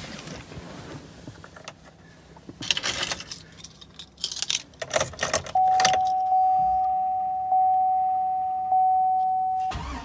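Keys jangling and rattling as the ignition key goes in, then the 2003 Cadillac Escalade EXT's dashboard warning chime sounds a steady high ding, repeated about every second and a bit and fading between dings. The chime cuts off near the end as the key is turned to start.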